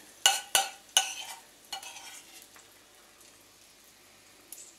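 Metal spoon clinking against a stainless steel pan and a porcelain plate while Brussels sprout leaves are spooned out: four sharp clinks within the first two seconds, each ringing briefly.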